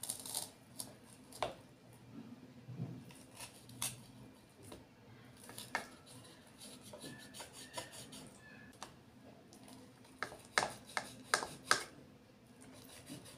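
A steel knife cutting through a bread omelette, its blade scraping and tapping on the plate beneath in scattered sharp clicks, with a quick run of several louder clicks near the end.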